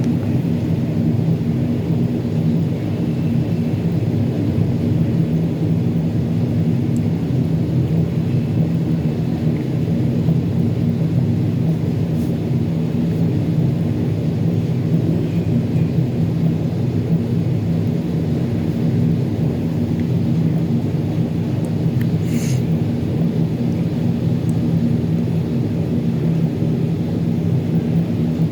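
Steady, unbroken low droning hum with a fixed pitch, the constant background drone of some running machine. A faint brief tick about 22 seconds in.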